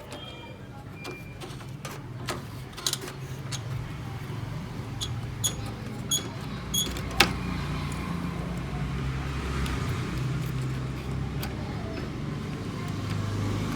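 Scattered light clicks and taps of plastic gears and parts being handled and fitted back into a Canon MF3010 printer's gear train, over a low steady hum.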